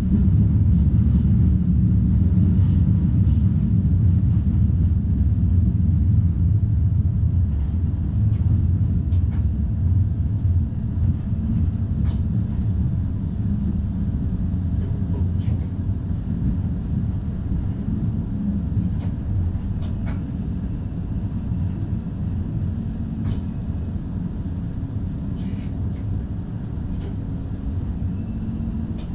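NS double-deck intercity train (DDZ) running on the rails, heard from the driver's cab: a steady low rumble with scattered light clicks, slowly getting quieter.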